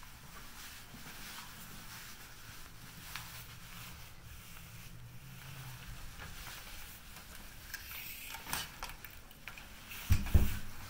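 Footsteps and light clicks over a low steady hum that fades out about six seconds in, then a loud dull thump near the end.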